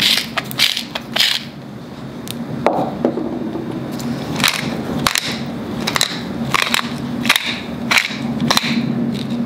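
Hand-twisted salt and pepper mills grinding, first one mill and then another, in spurts of gritty crunching with short pauses between them.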